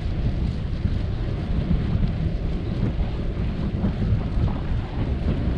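Wind buffeting the microphone of a bicycle-mounted camera while riding: a steady low rumble.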